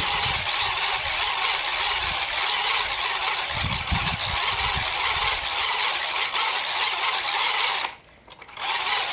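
The plastic gearbox of a toy solar helicopter whirs steadily as its rotor is cranked round by hand. The cranking spins the small DC motor as a generator into a 39-ohm resistor. The whirring stops for about half a second near the end, then starts again.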